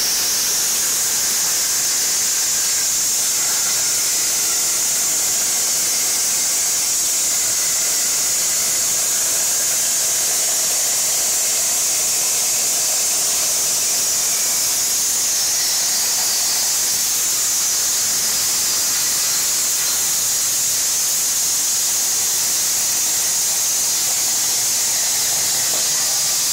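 65 A plasma torch on a CNC table cutting 8 mm plate: a loud, steady hiss of the arc and air jet with faint whistling tones over it.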